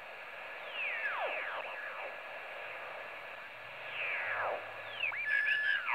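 Shortwave receiver audio while being tuned across the 20 m band in upper-sideband mode: steady band hiss with whistling tones that sweep downward in pitch twice as signals pass through, then a short rising whistle and a steady tone near the end as a station comes into tune.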